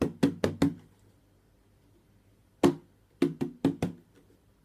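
Empty milk bottle drummed on like a drum: four quick knocks, a pause of about two seconds, then a single knock followed by four more quick knocks, with a few faint taps near the end.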